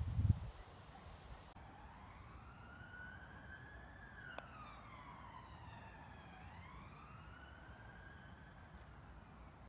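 Faint emergency-vehicle siren in wail mode, its pitch sliding slowly up and down twice. A low thump comes right at the start, and a single light click about four seconds in fits a putter striking the golf ball.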